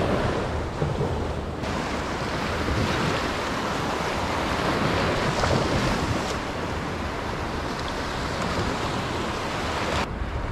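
Small waves breaking and washing over sand and shallow water, with wind rumbling on the microphone. The sound changes abruptly a little over a second in and again near the end.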